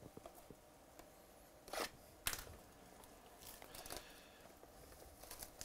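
Plastic shrink-wrap being torn open and pulled off a sealed cardboard box of trading cards: short crinkles and rips, with one sharp snap a little over two seconds in.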